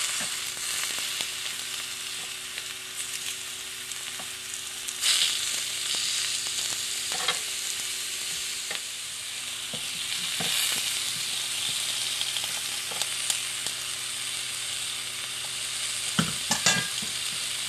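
Vegetables sizzling steadily on the ridged plate of a Starfrit Rock smokeless electric indoor grill, with occasional light clicks and knocks as the pieces are moved about, over a faint steady hum.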